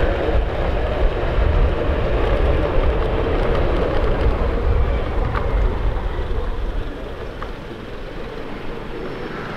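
Riding noise from a motorcycle under way: wind buffeting the microphone with engine and road noise under it. It eases off from about seven seconds in.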